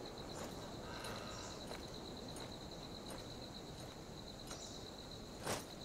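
Forest ambience: a high, steady insect trill pulsing quickly, with scattered footsteps on the forest floor and one louder snap near the end.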